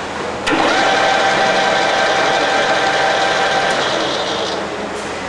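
Metal lathe switched on with a click about half a second in, then its spindle motor and three-jaw chuck, holding a round bar, run steadily with a whine.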